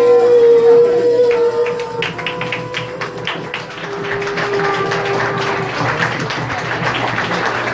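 Live acoustic guitar music with a long held note near the start, then a crowd clapping along, a stream of sharp hand claps over the music.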